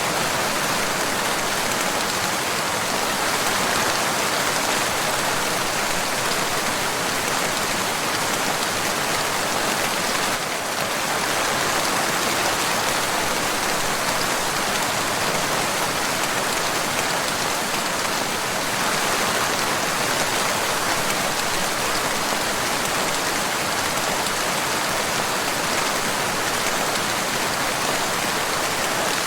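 Steady rain falling: an even, continuous hiss of many drops with no distinct individual hits.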